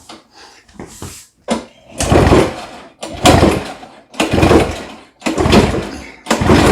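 Recoil starter of a Toro Snowmaster 20 two-stroke engine pulled repeatedly, five strong pulls about a second apart starting about two seconds in, spinning the engine over without firing. The spark plug is out and grounded against the engine for a spark test.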